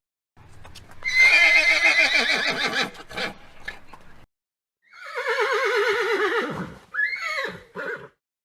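Horse whinnying twice, each call long with a quavering pitch, the second one falling; a couple of short calls follow near the end.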